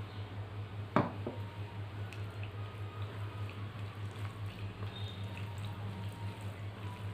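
A stainless steel bowl set down on a table with a single sharp clink about a second in, then faint wet squishing of rice and dal being mixed by hand, over a steady low hum.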